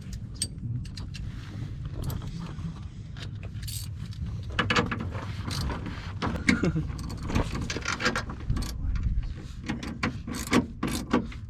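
Hand ratchet working a bolt on the car's rear subframe: irregular runs of short clicks and small metal knocks, busiest in the second half, over a low steady rumble.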